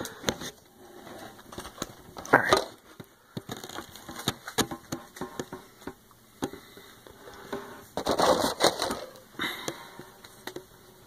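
Yu-Gi-Oh! trading cards being handled and laid into the tin's tray: light clicks and taps of the cards, with a louder swish of cards sliding against each other about two and a half seconds in and another about eight seconds in.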